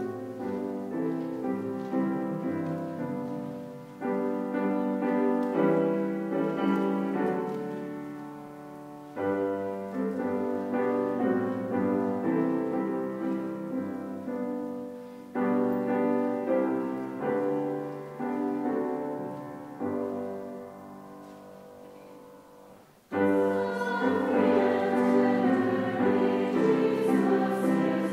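Piano playing the introduction of a hymn in phrases, each chord dying away. About 23 s in, a congregation starts singing the hymn with the piano.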